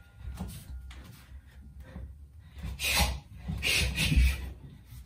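A Muay Thai fighter breathing out sharply with his strikes as he throws teep and jab-cross combinations, in two short bursts about three and four seconds in. A low thud of a bare foot landing on the floor comes with the second.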